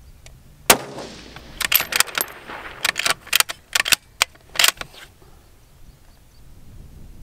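A single rifle shot about three quarters of a second in, from a Remington 700 bolt-action rifle in a JAE-700 G4 chassis. It is followed by a quick run of sharp metallic clicks and clacks as the bolt is worked to eject the spent case and chamber the next round.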